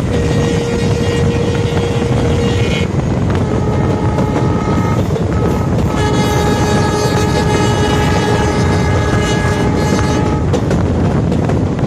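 WDP4 diesel locomotive's horn sounding in long blasts: a lower tone that stops about three seconds in, a higher one after it, and a long multi-tone blast from about halfway to near the end. Under the horn runs the steady rumble of the passenger coaches' wheels on the track.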